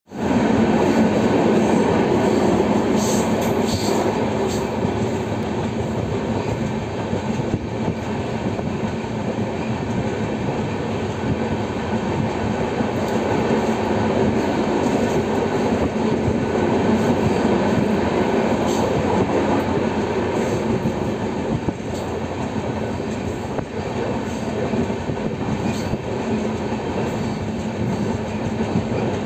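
Running noise of an Indian Railways train heard from aboard at speed: a steady rumble of wheels on rail, with a few faint clicks.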